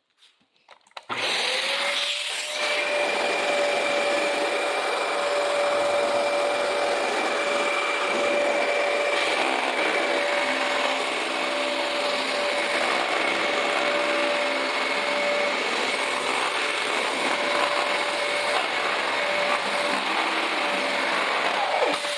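Vacuum cleaner switched on about a second in, its motor whine rising quickly to a steady pitch, then running steadily.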